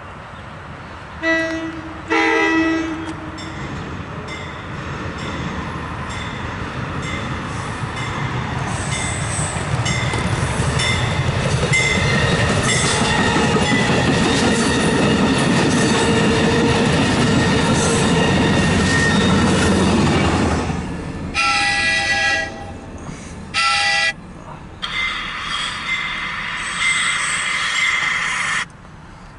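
MARC commuter train sounding its horn, a short blast then a longer one, then running past with a rumble of wheels and cars that builds and cuts off about two-thirds of the way in. Two more horn blasts follow, a longer one and a short one, and then a few seconds of high steady squealing noise.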